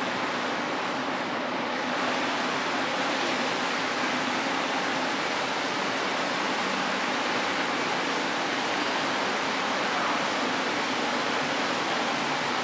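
Plaza fountain's rows of small vertical jets and a tall central jet falling back into a shallow pool: steady splashing of water.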